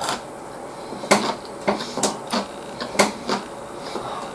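Close-up eating sounds: chewing gyudon (beef on rice), with chopsticks clicking against the takeout bowl, heard as about ten irregular short clicks and smacks.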